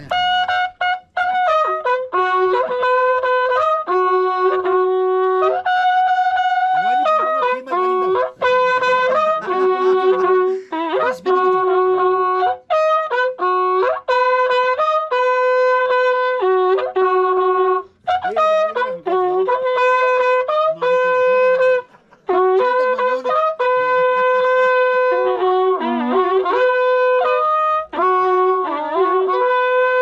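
Andean corneta, a horn trumpet, playing a melody of held notes that step between a few pitches, with short breaths between phrases.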